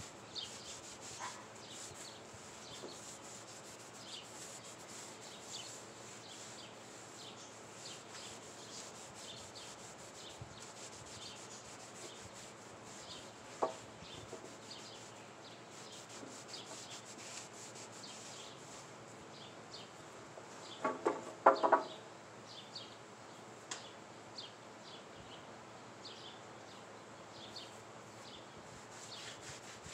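Repeated rubbing strokes of a gloved hand wiping stain along a rough wooden fence board. A little past two-thirds of the way in, a short run of loud pitched notes stands out above the rubbing.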